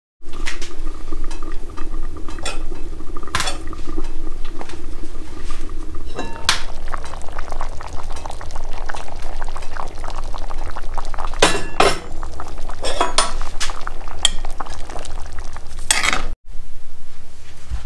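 Wood stove fire crackling over a steady hum, then a metal ladle clinking and scraping in a cast-iron Dutch oven of chili at a rolling boil, with several sharp knocks.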